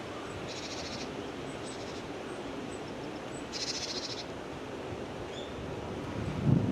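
Small wild songbird giving short, buzzy rapid trills, three in all, with faint high chips between, over steady outdoor background noise; a louder low sound comes near the end.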